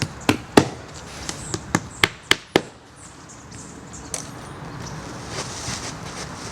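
Roofing felt underlayment being nailed down: a quick run of sharp nailing strikes, about three to four a second, then one more strike a little later.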